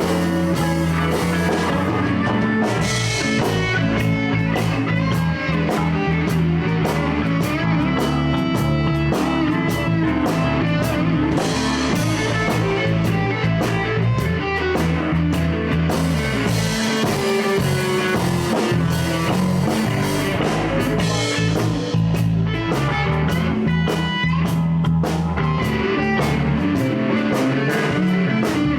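Live blues band playing an instrumental break between verses, with guitar, bass and drum kit going steadily.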